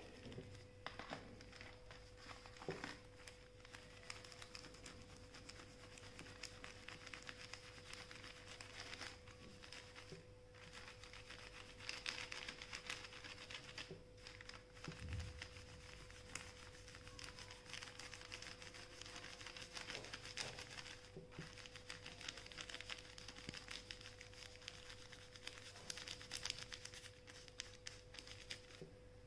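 Faint rustling and crinkling of paper, with oil pastels scratching across it in scattered short strokes as the paper is coloured. A faint steady hum runs underneath.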